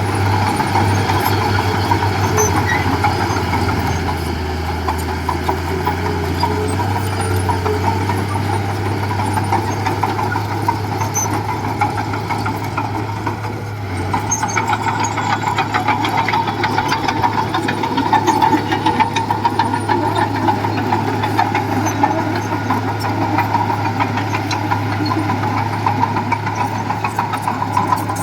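Diesel engine of heavy construction machinery running steadily under load. It eases off briefly about halfway through, then works harder again.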